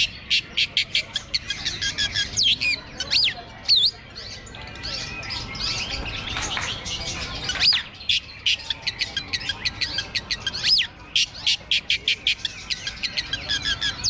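Long-tailed shrike (cendet) singing: rapid runs of sharp chattering notes, several a second, broken by loud whistled sweeps that rise and fall.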